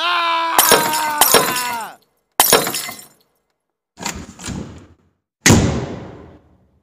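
Glass-shattering sound effect: a held tone that bends down in pitch and cuts off about two seconds in, broken by sharp crashes. Three more separate crashes of breaking glass follow, the last one fading out over about a second.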